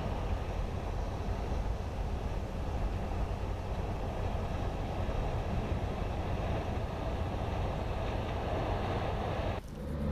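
Steady rumble and wind noise on the open deck of a moving river cruise boat. About nine and a half seconds in it cuts off abruptly and a steady low hum takes over.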